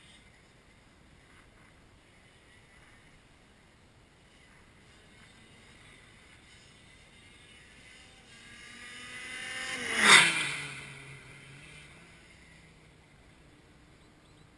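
Two-stroke shifter kart approaching and passing close by at speed: its engine note builds over a couple of seconds, peaks about ten seconds in, and drops sharply in pitch as it goes past, then fades away.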